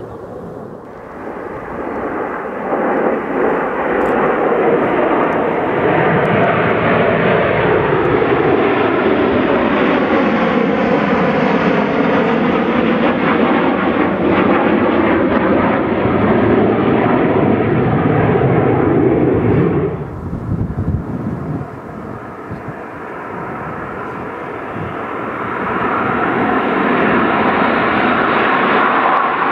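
F/A-18F Super Hornet fighter jets flying over in formation, their twin turbofan engines giving a loud, steady jet roar whose pitch sweeps down and back up as they pass. About two-thirds of the way through, the roar cuts off abruptly and then builds again as another pass approaches.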